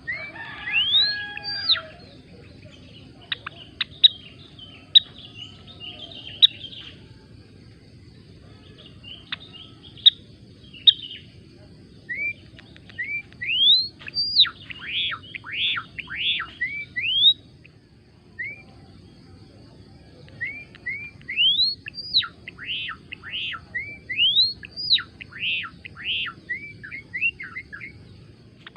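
A gelatik belong bird singing. It gives scattered chirps and a few sharp ticks, then long runs of quick high whistled notes that sweep up and down, with short pauses between phrases.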